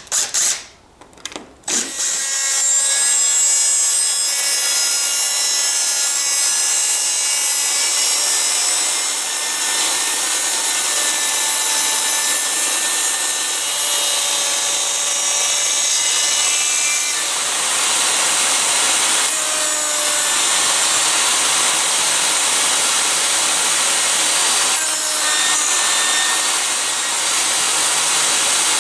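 An impact driver rattles briefly as it drives a screw. Then a DeWalt jobsite table saw runs steadily with a faint whine while the crosscut sled feeds a pine board through, cutting a dado.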